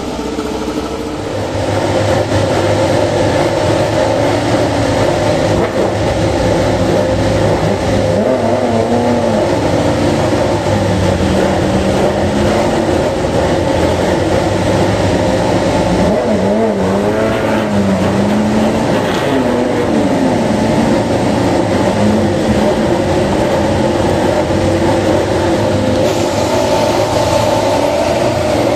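Racing motorcycle engines running in a loud, steady drone, with the revs rising and falling in two spells of throttle blips, about a third of the way in and again past the middle.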